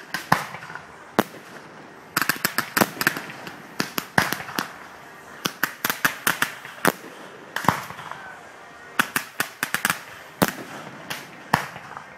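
Fireworks display going off: clusters of sharp bangs and crackling reports, several a second, separated by short irregular lulls.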